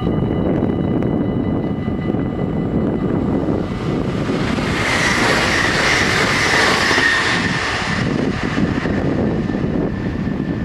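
NS electric passenger train passing at speed over the level crossing, its rushing, rolling noise building to a peak about six seconds in and fading away by about eight seconds.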